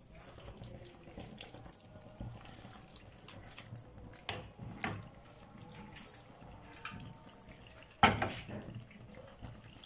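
Onion-tomato masala, fried until its oil has separated, sizzling gently in a nonstick wok while a ladle stirs it. A few short scrapes of the ladle come around the middle, and a louder clatter of the ladle against the pan comes about eight seconds in.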